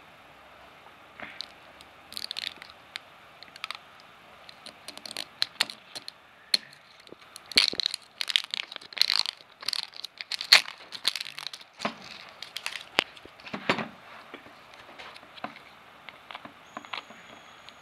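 Plastic shrink-wrap seal being torn and peeled off the cap of a plastic dressing bottle: irregular crinkling, crackling and sharp snaps, busiest in the middle and thinning out near the end.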